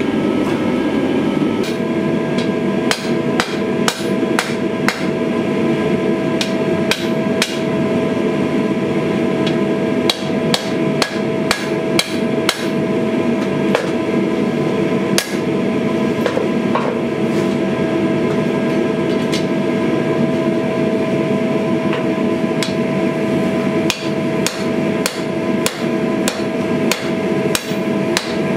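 Hammer blows on red-hot steel at the anvil, many sharp strikes in uneven runs, forging a blade tip. Under them runs a steady loud machine noise with a constant tone, starting about two seconds in.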